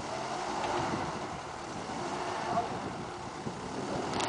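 Four-wheel-drive engines running under load during a mud recovery on a tow strap, their pitch rising and falling.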